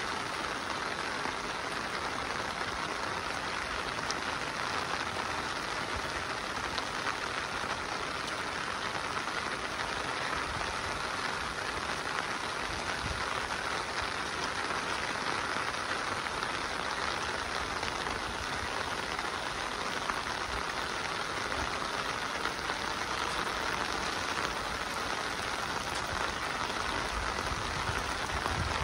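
Steady monsoon rain falling, an even hiss of drops with a few faint patters.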